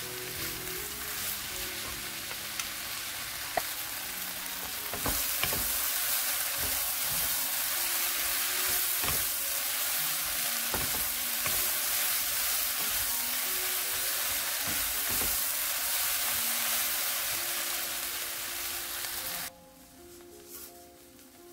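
Fish cake strips and vegetables stir-fried in a hot oiled pan, sizzling steadily, with the scrape and knock of wooden spatulas tossing them. The sizzle gets louder about five seconds in and cuts off suddenly near the end, leaving soft background music.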